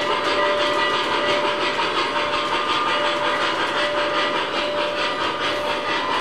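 MTH RailKing O-gauge Union Pacific Big Boy model locomotive running, its onboard sound system playing steady rhythmic steam chuffing and hiss over the rattle of its wheels on the track, with a steady hum underneath.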